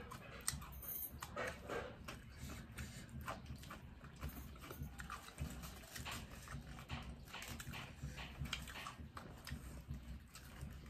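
Chewing and crunching of singju, a Manipuri salad of raw vegetables, eaten by hand by several people, heard as irregular small clicks and crackles.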